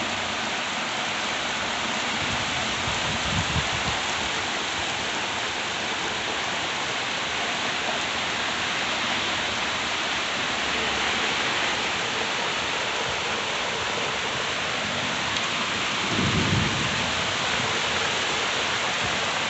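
Heavy rain pouring down steadily, a dense even hiss of rain hitting the ground, with a brief low rumble about three seconds before the end.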